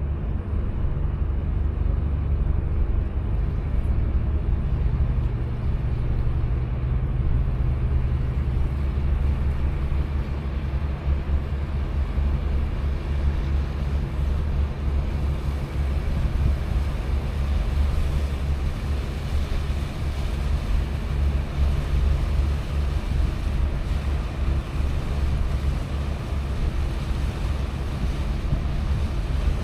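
Steady low rumble of a cruise ship under way, with wind buffeting the microphone.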